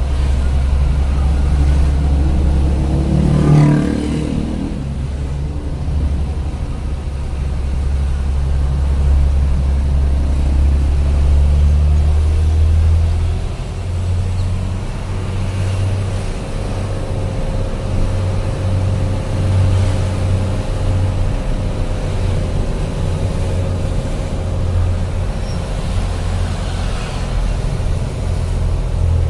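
Large vehicle's engine running steadily, heard from inside the cab while driving, with a deep low drone. A brief louder rising sound comes about three and a half seconds in, and the engine note changes about thirteen seconds in.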